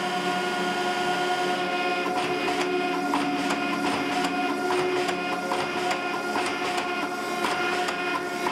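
Hydraulic forging press running, its pump motor giving a steady hum with several fixed tones, while its dies squeeze a glowing steel bar. From about two seconds in, irregular sharp knocks and ticks sound over the hum.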